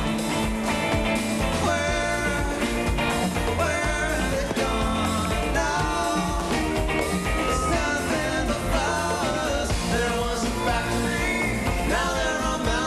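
Live rock band playing: electric guitars, bass and drums with a male lead singer.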